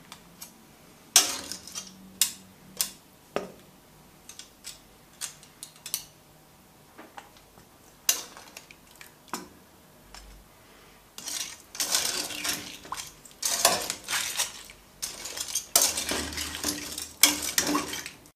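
Metal kitchen tongs clinking and scraping against a stainless steel stockpot and bowl. There are scattered sharp clinks at first, then denser clattering in the second half as the tongs work among the boiled crayfish in the pot.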